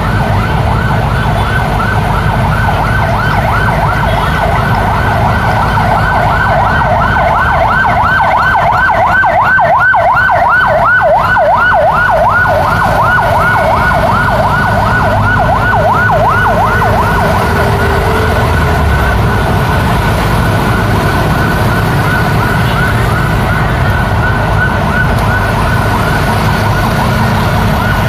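Electronic emergency-vehicle siren in a fast yelp, several rising-and-falling sweeps a second, growing louder to a peak about ten seconds in and then slowly fading. Underneath runs the steady rumble of city traffic, cars and motorbikes passing.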